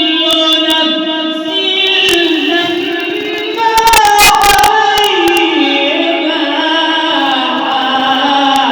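A man's voice reciting the Quran in the melodic mujawwad style, holding long ornamented notes that glide slowly up and down in a high register. A short cluster of clicks comes about four seconds in.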